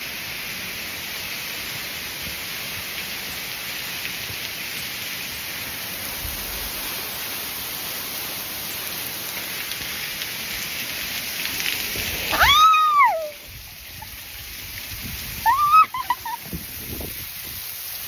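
Steady rush of falling water. Near the end, two short high calls that rise and fall cut through, the first the louder, and the rushing then sounds quieter.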